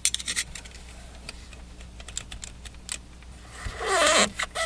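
A quick run of light clicks and rattles from tools or pipe fittings being handled, then fainter ticks. About four seconds in comes a rustling scrape with a short throaty vocal sound, followed by one more click.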